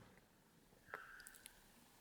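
Near silence with a faint click about a second in and a short, faint scrape, as the puzzle box's sliders are pushed back to close it.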